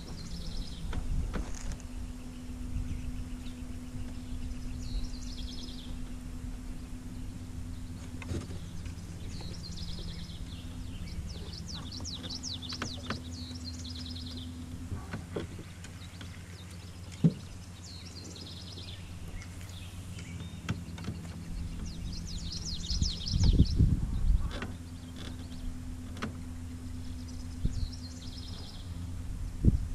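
Bass boat's electric trolling motor humming steadily, cutting out and coming back several times, with small birds chirping in repeated short trills. A sharp click comes about halfway through and a couple of low thumps near the end.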